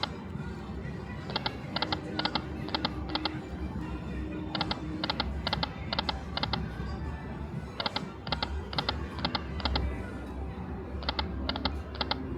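Dragon Link Autumn Moon slot machine in its hold-and-spin ball bonus: runs of quick clicking ticks as the reels spin and stop, coming in four clusters about three seconds apart, over the machine's music and casino background.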